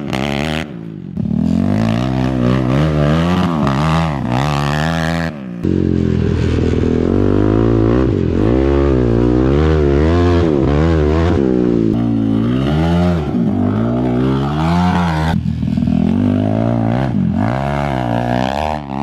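Yamaha YFZ 450 sport quad's single-cylinder four-stroke engine revving up and down over and over under hard riding, its pitch rising and falling with the throttle. The sound breaks off abruptly a few times.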